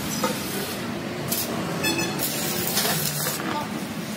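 Metal-repair workshop noise: a steady low rumble with several short hissing spurts.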